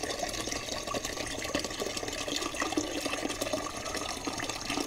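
Water running steadily from a tap into a metal kettle, filling it.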